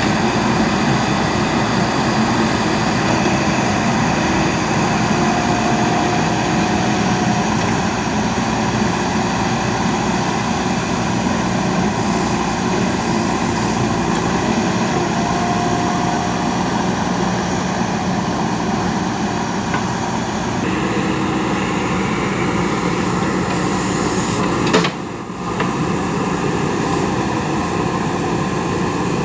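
Diesel engine of a JCB 3DX backhoe loader running steadily under work. The sound shifts abruptly about two-thirds through, and a sharp click with a short drop in level follows near the end.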